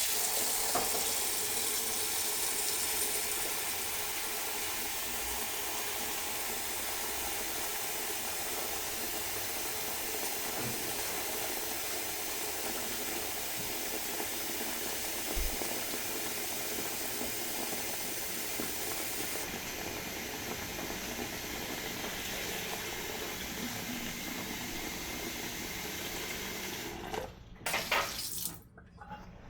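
Water running steadily from a kitchen tap, shut off about 27 seconds in, followed by a few brief handling sounds.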